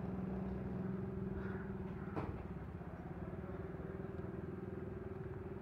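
An engine running steadily, a constant even hum, with one short click about two seconds in.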